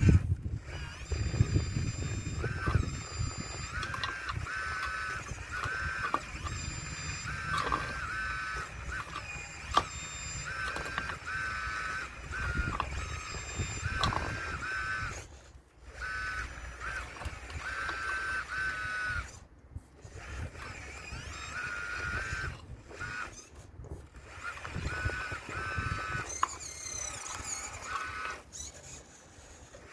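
Motors of a Caterpillar RC model excavator whining in short stop-start spurts as its controls are worked, with low rumbling and a few knocks from stones of the wall being scraped and knocked loose, mostly in the first half.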